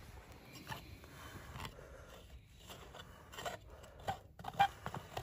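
Packed casting sand being scraped and broken away from a freshly cast metal pan with a metal trowel and a wooden stick. Scattered scrapes and small knocks that get busier in the second half, the loudest a few sharp knocks near the end.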